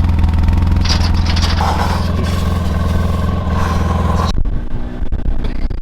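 Polaris RZR side-by-side's engine idling steadily, with a spell of scraping and rustling over it. About four seconds in, the engine sound cuts off abruptly.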